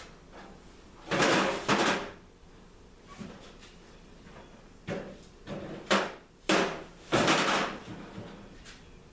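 Sheet-metal tool box parts being handled, several short scraping and sliding noises. Two loud ones come about a second in, and a quicker run of them between about 5 and 8 seconds in.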